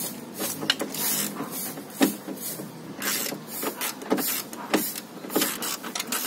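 Irregular scraping and clicking strokes, roughly one every half second, from hand work on a car door's power window mechanism as it is being unfastened for removal.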